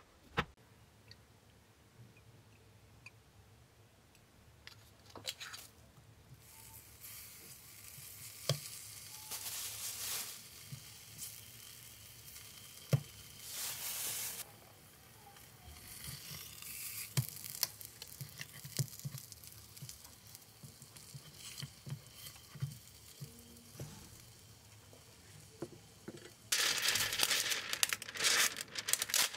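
A knife clicks against a plastic cutting board as it slices luncheon meat. Then slices of luncheon meat sizzle in oil in a small pan. Near the end, sandwich-wrapping paper is pulled from its box with loud crinkling.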